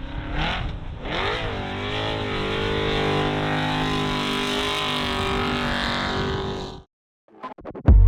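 Off-road race truck engine revving twice, then running at steady high revs for several seconds before cutting off abruptly.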